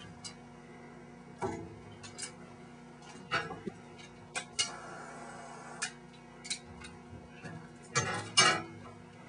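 Irregular small clicks and taps of hands working small hard parts on a crossbow string while an ivory spacer is fitted onto it, with a louder clatter near the end.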